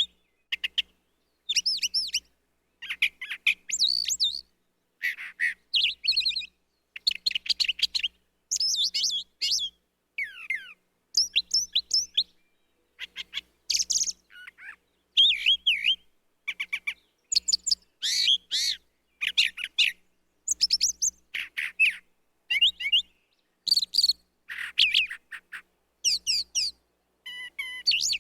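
Brown thrasher singing: a long run of short, varied phrases, each a quick cluster of repeated notes, separated by brief pauses.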